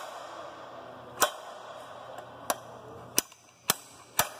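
Hammer tapping a bearing seating tool to drive the bearing onto an Eaton Fuller 10-speed transmission's input shaft: about six sharp single taps, spaced a second or so apart and coming closer together near the end.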